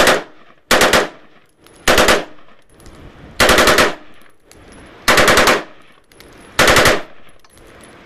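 5.56 mm AR-15 carbine with a Slide Fire bump-fire stock firing six short bursts, each a quick string of rapid shots, about a second and a half apart. The stock uses the recoil to work the trigger, which gives near full-auto bursts.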